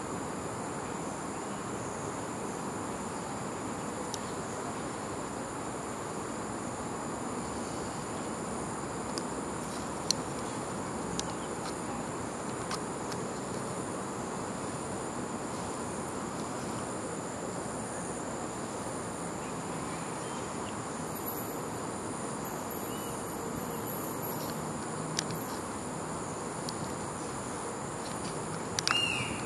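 A steady chorus of insects with a continuous high-pitched shrill drone. A few faint clicks sound along the way, and a short, sharp sound falling in pitch comes near the end.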